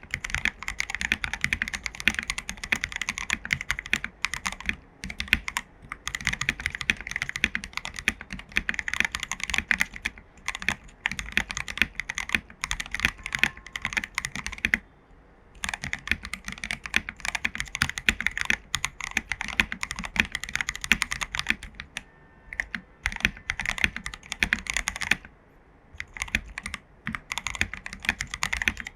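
Fast, continuous typing on an AKKO PC75B Plus mechanical keyboard with lubed Jelly Black linear switches and XDA-profile keycaps: a dense run of keystroke clacks, pausing briefly twice, about halfway and near the end.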